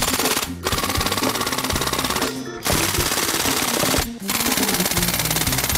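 Suppressed RPB M-10 (MAC-10) submachine gun firing on full auto: four long, rapid bursts with brief breaks between them.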